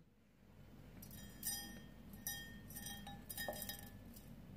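Faint clinks of a glass bowl against a stainless-steel shaker canister while coarse spice rub with sea salt is poured in: about five light, ringing taps spread over a few seconds.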